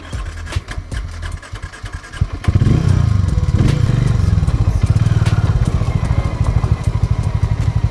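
Harley-Davidson X440's single-cylinder engine running at low revs, with scattered clicks over the first couple of seconds. About two and a half seconds in the throttle opens and the engine revs up and runs loud with a rapid thumping beat.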